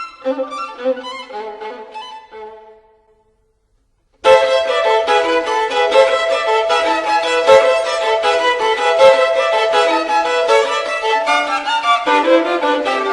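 Violin music: a melody fades out over the first three seconds, a brief silence follows, then louder, fuller violin music begins about four seconds in and carries on.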